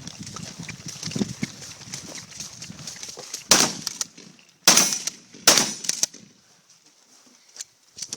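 Three shots from a Remington 870 pump shotgun firing slugs, the first about three and a half seconds in and the next two following about a second apart, each ringing briefly.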